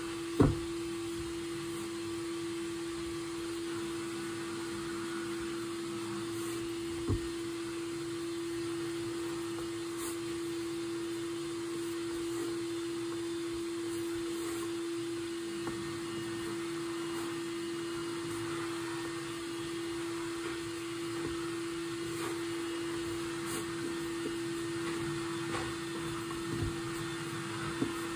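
Vacuum cleaner running steadily in another room, a constant hum over an even hiss, with a sharp thump just after the start and a smaller one about seven seconds in.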